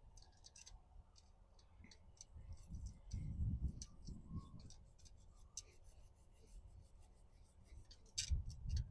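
Small stainless steel wire brush scrubbing the timing chain tensioner through the oil fill opening of a Toyota 5.7L V8: faint, irregular scratching and clicking. There are a few dull low bumps, the loudest about three to four seconds in and near the end.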